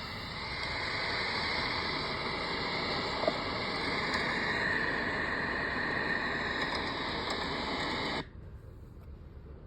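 Steady hiss of heavy rain that cuts off suddenly about eight seconds in, giving way to a quieter, duller noise.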